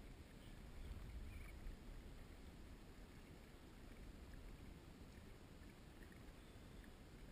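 Near silence: a faint, steady low rumble of water and wind around a kayak on open sea.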